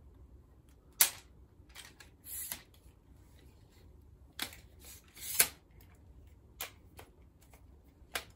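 Ring light tripod stand being handled and pulled out to its height: a series of about eight sharp clicks and short scrapes from its telescoping tubes and fittings, the loudest about a second in and again past the middle.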